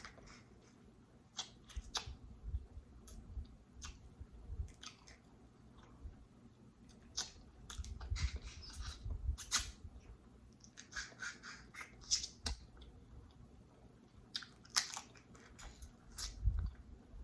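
A person chewing and biting food close to the microphone, with wet mouth sounds and irregular sharp clicks and crackles.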